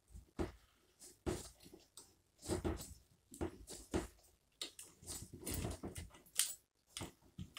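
A hand rummaging in a wall cavity through a small access hole, working the shower head's pipe and nut loose: irregular knocks, scrapes and rustles against drywall and plumbing.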